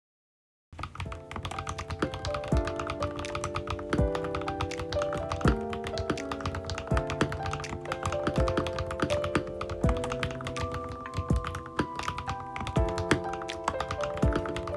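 Fast typing on a Kemove K87 1980 mechanical keyboard, a dense run of key clicks, over background music. It starts just under a second in, after a moment of silence.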